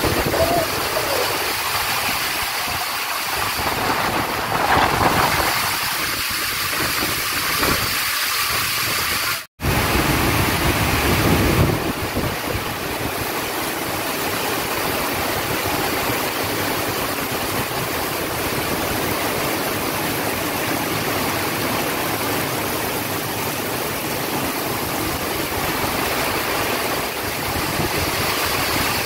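Heavy rain pouring down in a steady, dense hiss. About nine and a half seconds in, the sound cuts out for a moment.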